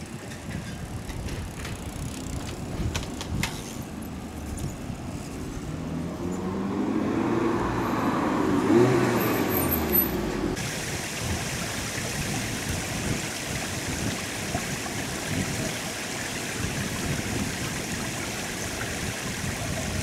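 Seibu 6000-series electric commuter train running on the track, its motor whine gliding up and the wheels rumbling, growing louder toward ten seconds in with a brief high squeal. About ten seconds in the sound changes abruptly to a steady hiss.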